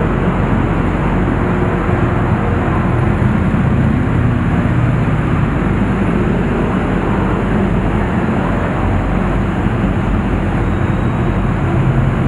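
Motorcycle engine running at low speed as the bike rolls slowly across a ferry's enclosed vehicle deck, a steady low rumble with other motorcycles running nearby.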